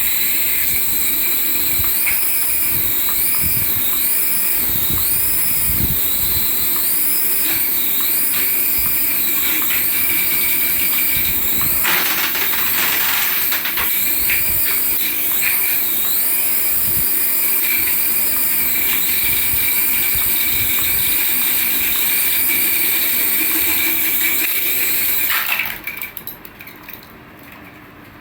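Electronic sound effect from a battery-powered toy's speaker: a high warbling tone rising and falling about once a second over a steady hiss. It cuts off suddenly near the end.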